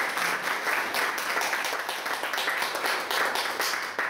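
A small audience applauding, many overlapping hand claps, dying away near the end.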